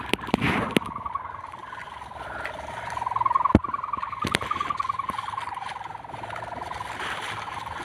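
Kite hummer with a new ribbon vibrating in the wind: a steady droning hum that wavers in pitch, with a few sharp clicks.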